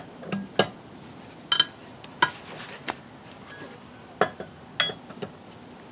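Steel four-way (cross) lug wrench clinking against lug nuts as it is fitted and turned to loosen them: about eight sharp metallic clinks at uneven intervals, a few with a brief ring.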